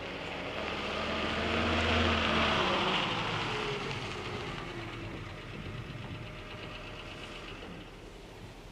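Car driving up a gravel road and slowing to a stop: engine running with tyre noise on the gravel. It is loudest about two seconds in, then the engine note falls and fades as the car slows.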